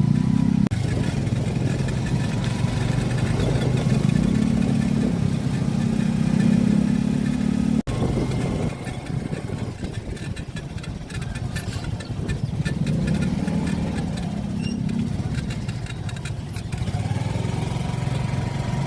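A motor vehicle's engine running while on the move, with road noise; the engine pitch rises and falls as the speed changes.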